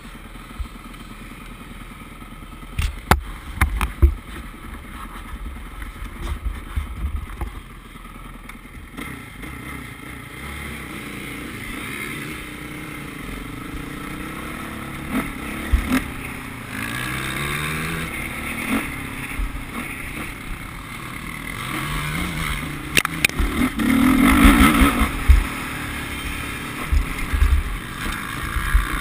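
Dirt bike engine heard from a camera on the moving bike, revving up and down through the gears as it rides the motocross track, growing louder in the second half. Low rumbling from wind on the microphone and a few sharp knocks early on.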